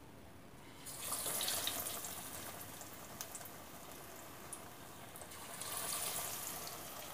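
Hot oil sizzling and crackling as batter-coated chicken pieces go into the pan for deep-frying. The hiss starts about a second in and swells again near the end as more oil bubbles up.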